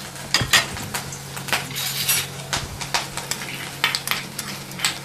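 Chopped ginger and green chilli sizzling in hot mustard oil in a stainless steel kadhai, with a metal slotted spoon scraping and clinking against the pan in quick repeated strokes as it is stirred.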